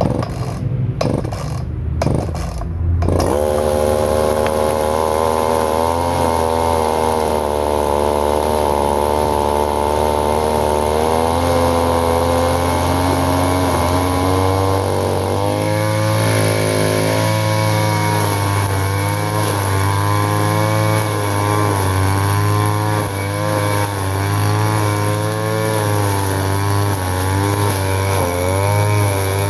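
Handheld gasoline brush cutter (grass cutter) running at high speed while cutting thick, tall grass. Its engine note rises and falls as the load changes.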